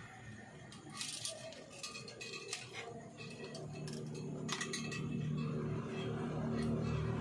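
Scattered light clicks and clinks of stiff copper magnet wire as it is pulled through and wound around a ferrite core by hand. A low steady hum grows from about four seconds in.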